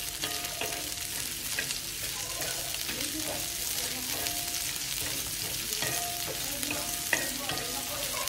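Chopped onions frying in oil on a black iron tawa, stirred and scraped with a metal spatula, with small scrapes and ticks over a steady hiss. One sharper clink of the spatula on the pan comes about seven seconds in.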